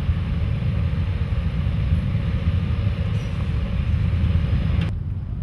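A row of cruiser-style police motorcycles idling together, a steady dense low rumble of many engines. Near the end the higher part of the sound drops away abruptly.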